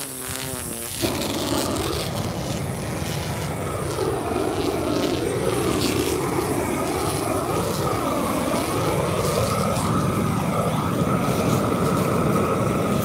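A power tool's motor running steadily as an asphalt speed bump is shaved down. Its pitch dips and rises over and over.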